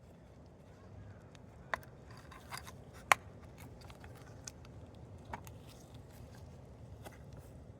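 Honda N-ONE's heater blower fan motor running with a low steady whir and irregular sharp clicks or ticks, the loudest about three seconds in: the abnormal noise from the blower motor.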